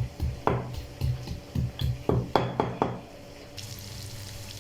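Irregular knocking, about two to three strikes a second, as garlic is crushed. About three and a half seconds in it gives way to the steady sizzle of chicken deep-frying in oil.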